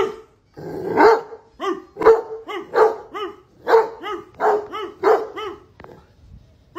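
Rottweiler barking in a quick run of about a dozen short barks, two to three a second, falling quiet near the end.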